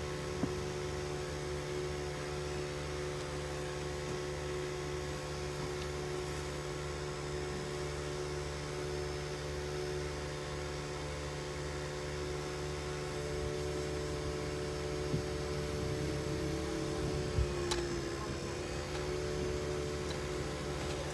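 Steady low hum of a car idling, heard from inside the cabin. The tone shifts briefly near the end as the car creeps forward.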